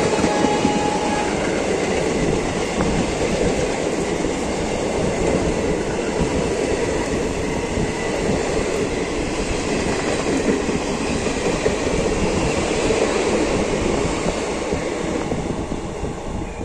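Passenger coaches of an Indian Railways express running through a station at speed without stopping, with the steady rumble and rattle of wheels on the rails. The noise dies away near the end as the train draws off.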